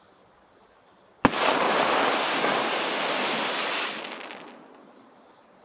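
A single-shot aerial firework bursting with a sharp bang about a second in, followed by about three seconds of dense crackling that fades away.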